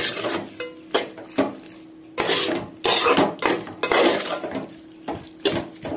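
A metal spatula scraping and knocking against a coated pan as raw mutton pieces are stirred into an onion-tomato masala, in irregular strokes.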